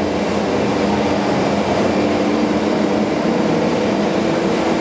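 ABAC 7.5 three-phase rotary screw air compressor running steadily: a constant hum with one steady tone in it.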